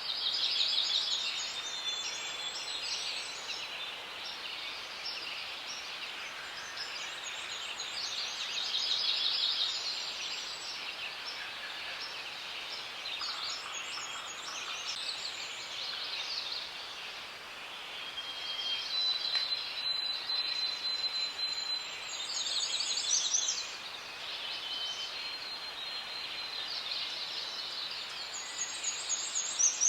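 Forest ambience: several birds singing and chirping over a steady background hiss, with rapid trills that come and go every few seconds and a few short, high whistled notes between them.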